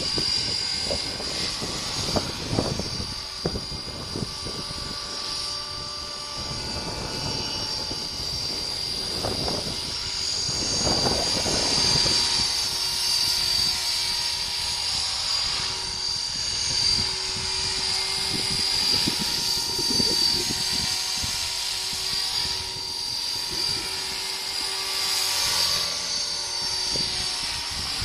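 Electric Align T-Rex radio-controlled helicopter in flight: a steady high-pitched motor and gear whine over the rotor sound, with gusts of wind buffeting the microphone.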